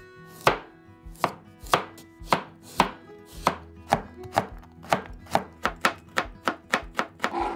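Chef's knife chopping a peeled carrot on a cutting board: a steady series of sharp knocks, about two a second, coming faster near the end as the slices are cut into thin strips.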